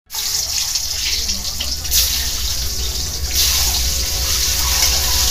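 Whole boiled eggs sizzling in hot oil in a steel kadai as they are turned with a spoon: a steady hiss that grows louder a little after three seconds in.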